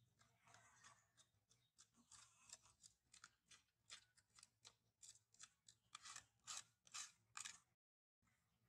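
A rapid run of crisp snips and crackles from crinkly material being handled. They come faster and louder in the last few seconds, then cut off abruptly near the end.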